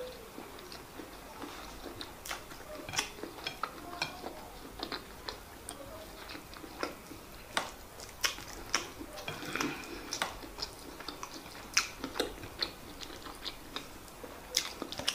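Close-miked eating: chewing a mouthful of white rice and stew with many sharp, irregular wet mouth clicks and smacks, and bare fingers scooping rice on a plate.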